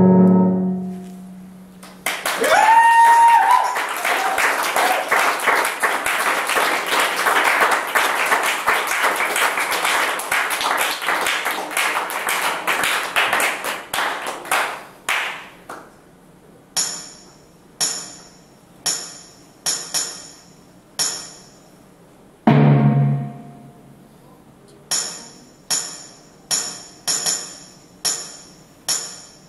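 Live dungeon synth played on keyboard synthesizers. A held synth chord dies away about a second in. A dense, crackling noise wash then thins out over about twelve seconds, followed by a looped, tambourine-like hit repeating about one and a half times a second, with a brief low synth note in the middle of it.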